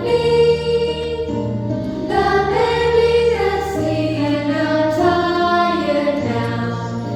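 A children's phonics song for the letter sound "sh": voices singing a melody in held notes over a steady instrumental accompaniment.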